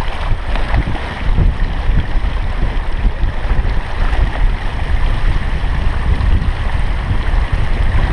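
Water rushing and hissing along the hull of a Beneteau Oceanis 34 sailing at speed, under a heavy, gusty rumble of wind buffeting the microphone.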